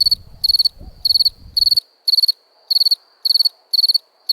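A cricket chirping in a steady rhythm, about two chirps a second, each chirp a quick run of high pulses. A faint low background rumble underneath cuts off suddenly a little under two seconds in.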